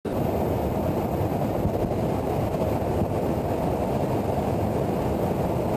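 Steady low roar of a KC-135 tanker in flight, heard from inside the boom operator's station: engine and airflow noise that stays even throughout.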